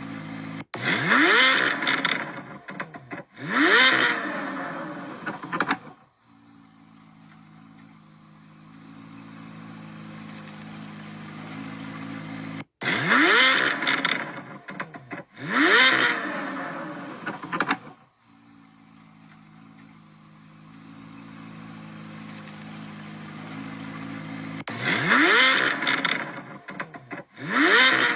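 C8 Corvette Z06's 5.5-litre flat-plane-crank V8 revved in two quick blips that climb high in pitch and drop back, then idling steadily, the idle slowly growing louder. The same pair of revs followed by idle comes three times, each pair starting abruptly.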